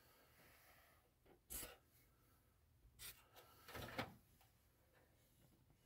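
Near silence with a few faint, brief handling sounds, soft knocks and rubs, about a second and a half in and again around three to four seconds in.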